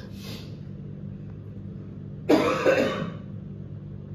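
A person clears their throat with a short, two-part cough about two seconds in, over a steady low hum.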